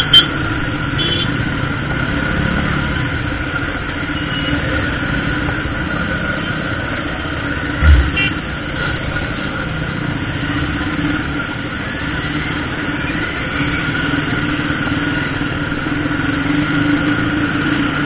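Motorcycle engine running steadily at low speed in slow street traffic, with a single loud thump about eight seconds in.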